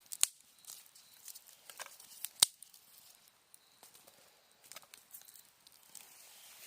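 Wood campfire crackling, with sharp pops from the burning wood, the loudest about a quarter second in and again about two and a half seconds in. Autumn insects trill faintly and steadily behind it.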